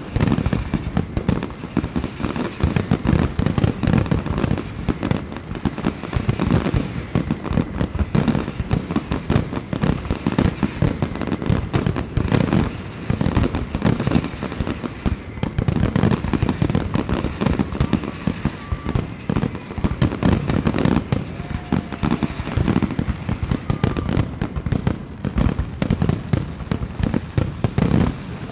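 Fireworks display finale: a dense, continuous barrage of aerial shell bursts and crackling, with heavy booms and rapid bangs overlapping throughout.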